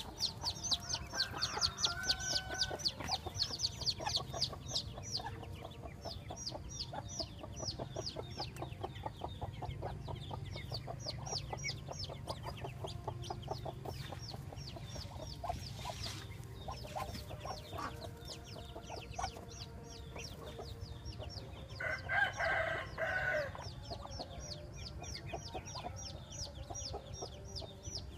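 Muscovy ducklings peeping nonstop, a dense stream of short, high, falling peeps that is busiest in the first few seconds. About two-thirds of the way through, one louder, drawn-out call from a larger bird stands out.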